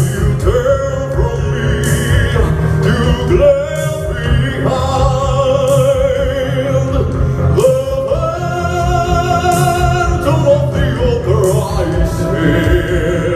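Operatic show-tune singing over a loud amplified backing track with a heavy bass, the voices holding long notes with vibrato, several of them between four and eleven seconds in.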